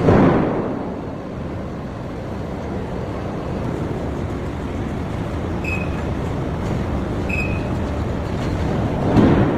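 Heavy forge machinery for forging and rolling a flange ring running steadily. A loud surge fades at the very start and another comes just before the end, with two short high squeals in between.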